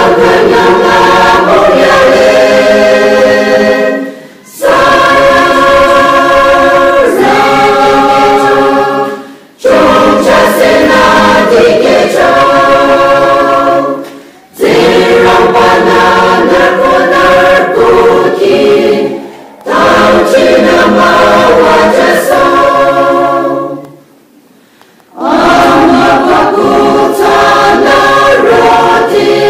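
A church choir singing together in phrases of about five seconds, with a short break between phrases and a longer pause near the end.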